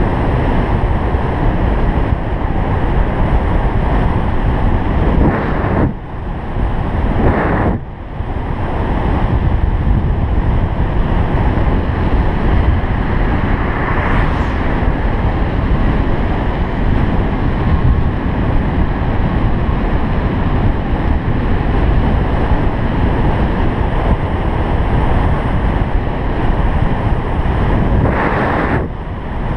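Wind buffeting the microphone of a bike-mounted GoPro Hero 3 riding fast downhill: a loud, steady rushing rumble, with tyre noise on asphalt. It eases off briefly about six and eight seconds in and again near the end.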